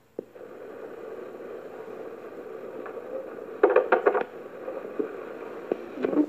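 Old cassette recording starting up: a click about a quarter second in, then steady tape hiss with a faint hum from a small room, broken near the middle by a brief clatter of knocks and by another knock near the end.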